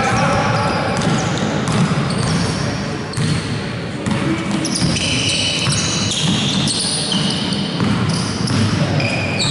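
Basketball being dribbled on a hardwood gym floor, with sneakers squeaking in short high chirps from about halfway through, echoing around the hall.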